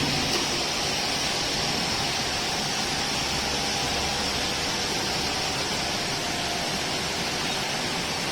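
Horizontal milling machine running steadily, making an even hiss with a faint high whine.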